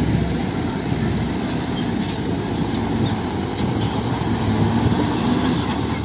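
Diesel engine of a soil-loaded Mitsubishi Fuso light dump truck running steadily at low speed as the truck crawls over rough dirt, a deep, even rumble.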